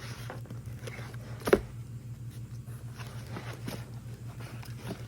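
Items being handled, with light clicks and rustles and one sharp knock about a second and a half in, over a steady low hum.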